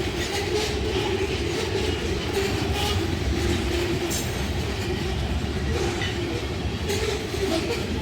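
CSX freight train cars rolling steadily past on the rails: a continuous rumble with irregular clicks of wheels over the track.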